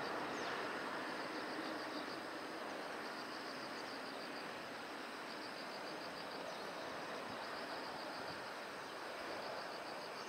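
Outdoor background hum with insects chirping: high, pulsed trills in groups of about a second, repeating every two seconds or so.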